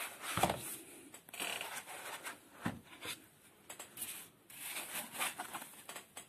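Cardboard packaging being handled and pulled away from a laptop: irregular rustling and scraping, with a couple of sharper knocks.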